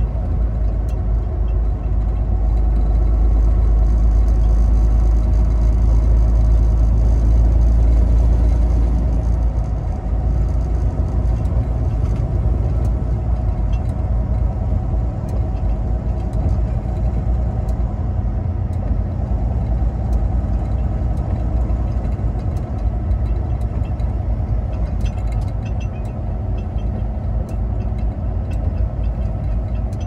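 Semi-truck engine and road noise heard from inside the cab while driving: a steady low rumble, a little louder for the first several seconds and then easing slightly.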